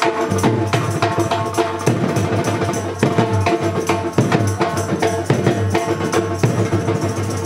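Live Indian street brass band playing a tune: clarinets hold the melody over a drum kit keeping a fast, steady beat with snare, bass drum and cymbal strikes.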